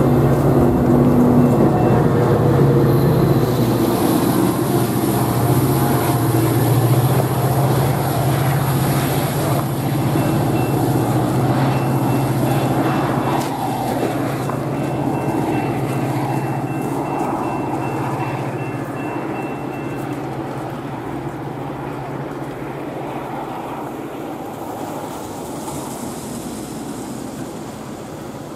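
Metra bilevel commuter train with its F40PH diesel locomotive pulling away, a steady low diesel hum and rail rumble that fade as it recedes.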